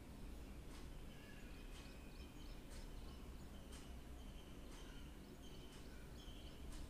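Faint background noise with a steady low hum, a few faint clicks and short, faint high-pitched chirps.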